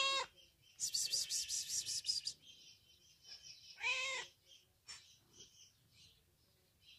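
Tabby-and-white mother cat meowing: one meow right at the start and another, rising then falling in pitch, about four seconds in. Between the two, a rapid high-pitched rasping chatter lasts about a second and a half.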